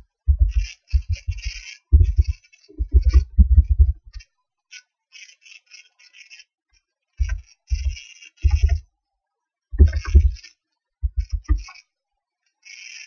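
Computer keyboard typing in short bursts. Each keystroke carries through as a dull thud with a lighter clatter above it, and there is a pause of about three seconds midway.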